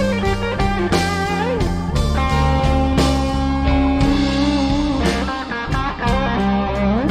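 Live blues-rock band playing an instrumental passage: an electric guitar lead with bent notes over bass and drums.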